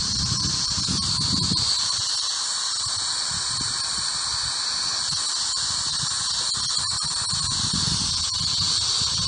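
Ghost box radio app producing steady static hiss with a constant high whine on top, and faint choppy low fragments in the noise.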